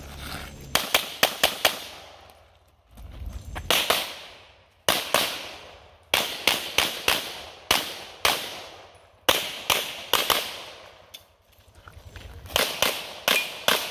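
Rapid pistol fire: quick strings of two to five sharp shots, several a second, with pauses of about a second between strings. The first string, about a second in, is the fastest, with five shots in under a second.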